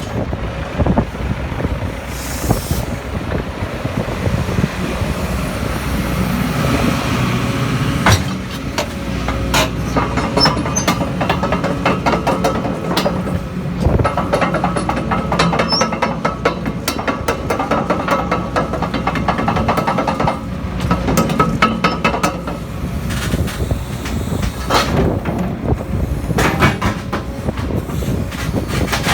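Case CX250C excavator running: a steady diesel engine drone with many metallic clanks and knocks through most of it, starting with a sharp knock about eight seconds in.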